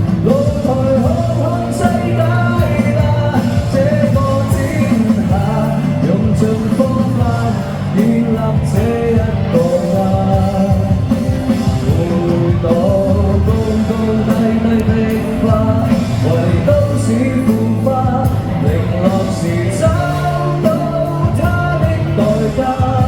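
A Cantonese pop-rock song plays at a steady loud level, with full band backing and a melodic lead line gliding over it, without clearly sung lyrics.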